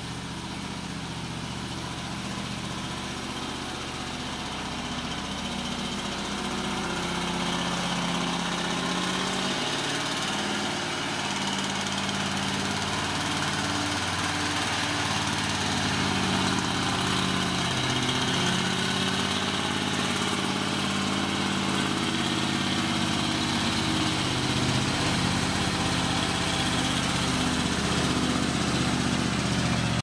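Heavily loaded log truck's diesel engine working hard as it climbs a steep dirt track. The engine note is steady and wavers slightly in pitch, and it grows gradually louder over the first half.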